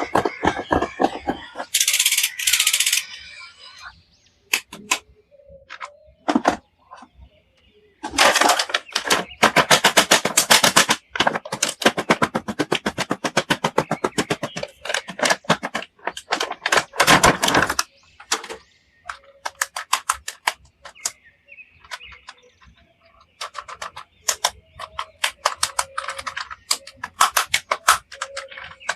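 Toy packaging and a plastic action figure being handled: rapid runs of sharp clicks and crackles, with a short burst of rustling about two seconds in.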